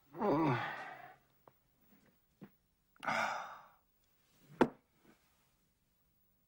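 A man sighing heavily twice: first a long voiced sigh that falls in pitch, then a breathy exhale about three seconds in. A single sharp click follows a little later.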